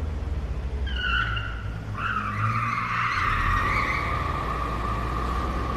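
Car tyres squealing over the low rumble of the car: a short squeal about a second in, then a longer one from about two seconds in that drops a little in pitch and holds.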